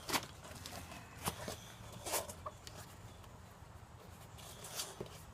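Rubber inner tube being pushed and worked by hand into a talc-dusted minibike tire: four short rubbing and knocking handling sounds, spread out, over a steady low hum.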